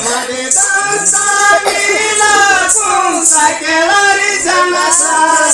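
Several voices singing a Moharam folk song (Moharam pada) together, with a jingling metal percussion keeping a steady beat.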